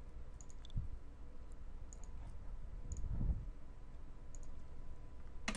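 Computer mouse button clicks: a few soft, scattered clicks and a sharper one near the end, over a faint low hum.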